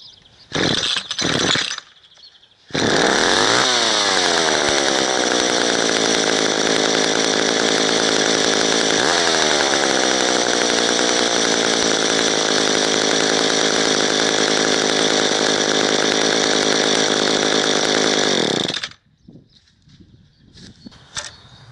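Two-stroke chainsaw pull-started with the choke on and the throttle locked at fast idle: two short pulls on the starter cord, then the engine catches a little under three seconds in and runs steadily for about sixteen seconds before cutting out suddenly. The sudden stop on choke is a stall, the sign that the engine has not yet been primed enough.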